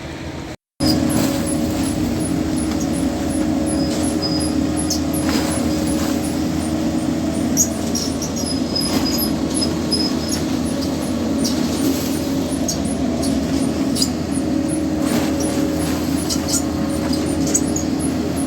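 Concrete mixer truck being loaded under a batching plant: a loud, steady machinery drone at a constant pitch, with faint high squeaks and light ticks over it.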